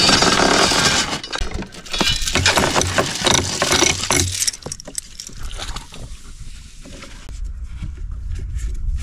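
Anchor chain rattling and clinking as it is paid out by hand over the side of a pontoon boat. The dense jangle dies down after about four and a half seconds to a few scattered clinks.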